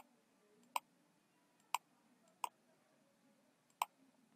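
Computer mouse clicking five times at uneven intervals, each a single sharp click.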